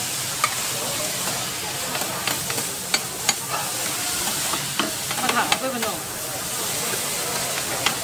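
Noodles sizzling with a steady hiss on a hot flat steel griddle as they are stir-fried, with metal spatulas clinking and scraping against the plate every so often and a quick run of clatters about five seconds in.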